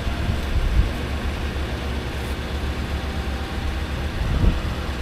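Steady low rumble of a 2011 Toyota Tundra's 5.7-litre i-Force V8 idling while the truck fails to move when put in drive.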